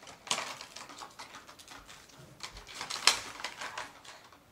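Drone box and packaging being handled and gathered up: a run of rustles and sharp clicks, loudest just after the start and again about three seconds in.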